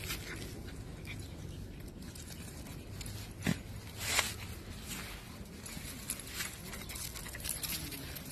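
Dogs greeting and playing on a walk, with a short sharp sound about three and a half seconds in and a brief noisy burst just after.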